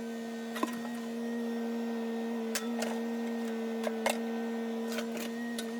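John Deere 35D mini excavator running at a steady pitch, with a few sharp knocks scattered through.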